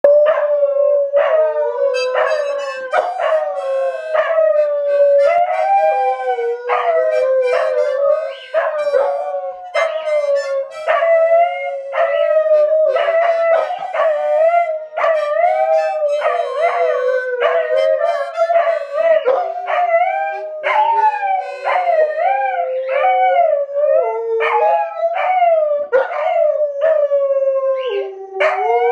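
Two Alaskan Malamutes, an adult and a puppy, howling together in long wavering howls along with harmonica playing, whose notes come in again and again about every half second.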